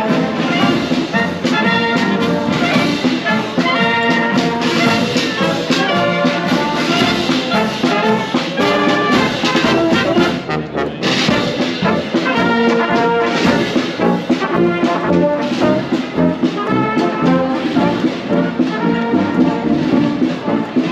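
Brass band playing.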